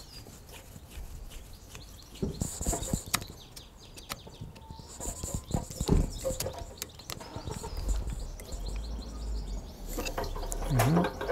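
Scattered light clicks, taps and scrapes of a screwdriver working a Jubilee hose clip on a motorcycle's in-line fuel filter.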